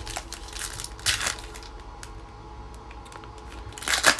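Foil wrapper of a trading-card pack crinkling and tearing open by hand, with a louder rip about a second in and a stronger one near the end.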